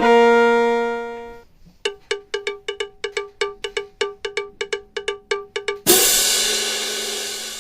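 Playful cartoon-style music: a held note fades out, then a quick run of short repeated struck notes at one pitch, about five a second, ending in a loud crash that slowly fades.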